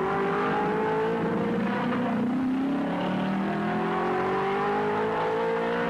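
Mercedes-Benz W196 Grand Prix car's straight-eight engine accelerating hard out of a hairpin. Its note climbs steadily, falls back about two and a half seconds in, and climbs again.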